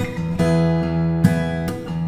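Background instrumental music with plucked notes.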